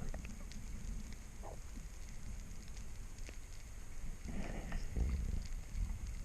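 Underwater ambience through a camera housing: a steady low water rumble with scattered faint clicks and crackling. A louder gurgling swell comes about four to five seconds in.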